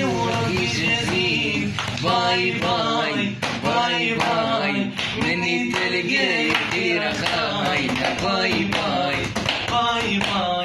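A young man singing a melodic vocal line over a steady beat of hand claps.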